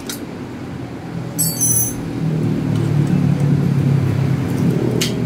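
Metal clinks of a wrench and bicycle parts during bike assembly: a tick at the start and a short clattering burst about a second and a half in. Under them a low, steady motor-vehicle engine rumble swells up and holds, becoming the loudest sound.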